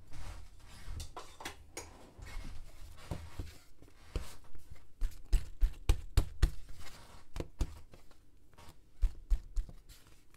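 Hands patting and pressing a ball of bread dough flat on a wooden board: a run of soft thumps and taps, loudest in a quick cluster about five to six and a half seconds in and again briefly near the end.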